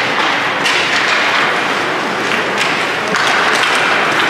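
Ice hockey play on an indoor rink: repeated hissing scrapes, like skate blades cutting into the ice, each starting suddenly, with thuds of puck or sticks.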